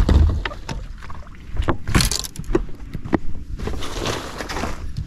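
Knocks, thumps and rustling as a person moves across a fibreglass bass boat's deck, with a heavy thump at the start and several bursts of rustle and hiss on the body-worn microphone.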